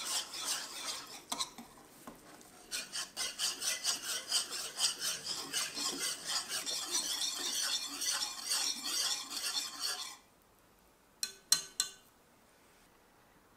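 Small metal whisk stirring a thin acorn-starch mixture in a pan: quick rhythmic scraping strokes against the pan, with a brief pause about one and a half seconds in. The whisking stops abruptly about ten seconds in, followed by a few sharp clicks.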